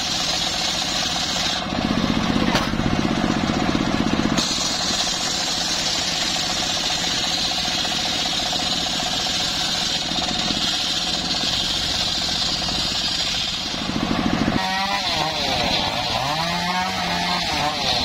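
Engine-driven homemade circular saw bench running steadily as its blade rips along a mahogany log. It gets louder for a couple of seconds about two seconds in. About fourteen seconds in the sound changes abruptly, with a wavering note sliding up and down.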